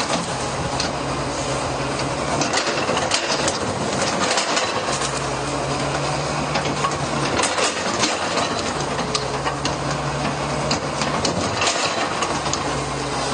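A heavy demolition machine working. Its engine hum repeatedly drops and picks up again as it labours, amid steady clanking, scraping and the clatter of falling debris.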